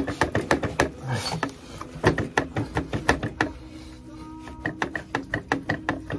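Socket ratchet wrench clicking in three quick runs of evenly spaced metallic clicks, worked against the inner primary of a 1976 Harley-Davidson shovelhead.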